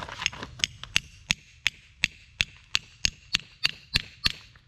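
Steady tapping as a Torque Lock steel staple is driven into epoxy-filled holes in a concrete pool wall: sharp, evenly paced strikes, about three a second. The epoxy in the holes is keeping the staple from sliding in freely.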